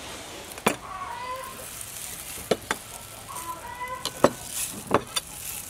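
A spoon knocking sharply against a mortar several times as ingredients are dropped in, with chickens clucking faintly in the background.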